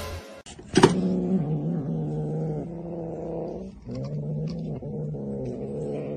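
A domestic cat growling over its food bowl: two long, low, drawn-out growls, the second beginning a little under four seconds in.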